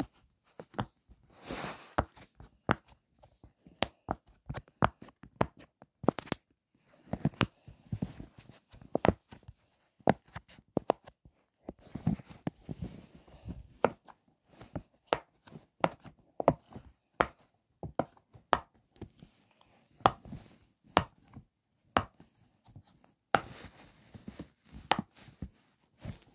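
Silicone pop-it fidget toy bubbles being pressed through, giving irregular sharp pops and clicks about one or two a second. There are a few brief rustling passages near the start, around the middle and near the end.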